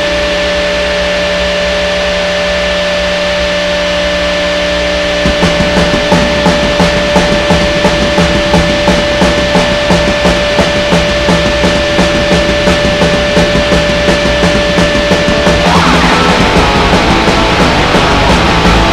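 Raw punk band recording: a steady, held distorted guitar tone, joined about five seconds in by drums playing a steady fast beat. Near the end the held tone breaks off and the full band comes in as a dense wall of noise.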